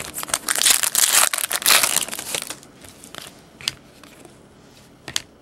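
Trading card pack wrapper being torn open and crinkled, about two and a half seconds of crackling rustle, followed by a few light clicks.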